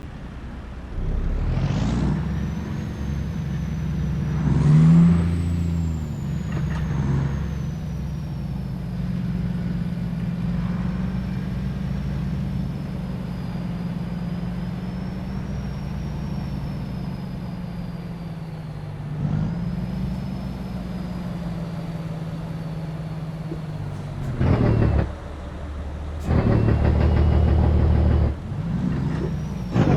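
Volvo FH truck's diesel engine running through a straight-piped exhaust with no muffler, idling with short revs about 2 and 5 seconds in. It gets louder near the end, with a burst about 25 seconds in and a longer one from about 26 to 28 seconds. A faint high whistle runs above the engine for much of the time.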